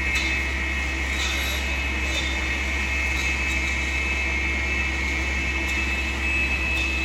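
Tree-trimming skidder working at a distance: a steady engine drone with a low rumble, and a steady high-pitched whine over it.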